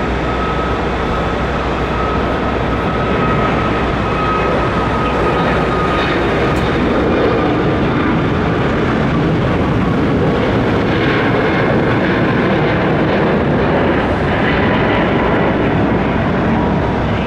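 Boeing 737-8 MAX's CFM LEAP-1B turbofan engines at takeoff thrust: a loud, steady jet noise with a faint whine that falls slightly in pitch.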